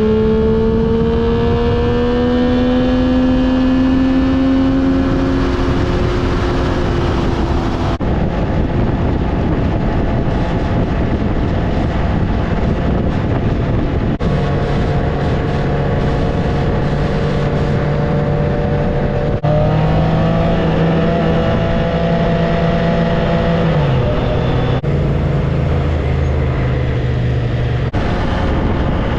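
Sport bike engine running at road speed under heavy rushing wind noise, its pitch climbing as it accelerates and later dropping. The sound changes abruptly several times.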